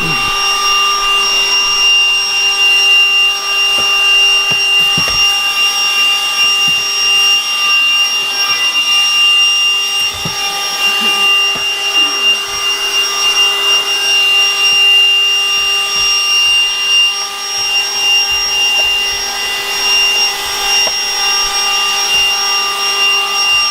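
Cordless handheld vacuum cleaner running steadily with a high motor whine, while its brush attachment makes faint scraping and knocking noises against surfaces inside a car.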